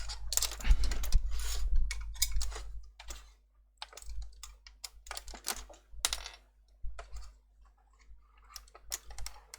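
Plastic clicks and rattles of an Audi TT instrument cluster's front cover being unclipped and lifted off, busy for about the first three seconds, then scattered single clicks.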